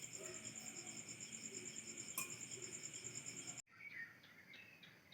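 Crickets trilling steadily in a fast, even pulse high in pitch. About three and a half seconds in the sound cuts off abruptly, and a bird begins giving short repeated chirps.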